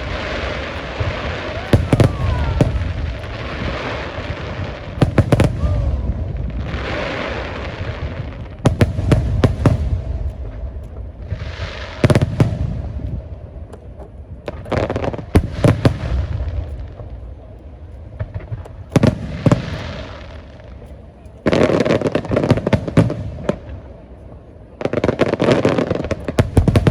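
Aerial fireworks display: shells bursting with sharp bangs every second or two, with hissing and crackling between them. Near the end come two dense stretches of rapid crackle.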